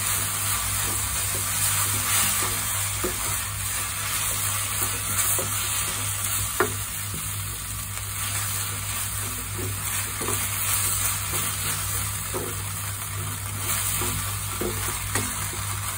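Wooden spatula stirring and scraping creamy spinach in a nonstick frying pan over steady sizzling, with light scrapes and taps on the pan and one sharper knock about six and a half seconds in.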